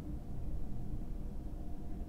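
Steady low background hum and rumble from the room and microphone, with no distinct events.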